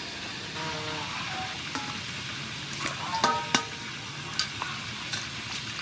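Water splashing and sloshing in a steel bowl as cucumbers and mint leaves are washed by hand, with a few sharp knocks on the bowl that ring briefly, the loudest a little past three seconds in.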